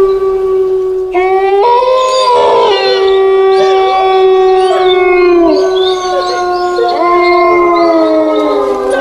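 Horror sound effect of eerie layered howling: a long held wail underneath, with further wailing howls coming in about a second in and again near the end, rising and then sliding down in pitch.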